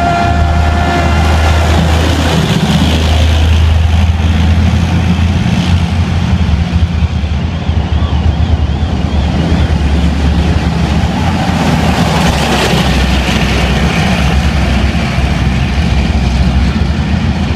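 Tanks driving past in a column: a loud, deep, steady engine rumble. A short tone rises and then holds a steady note right at the start.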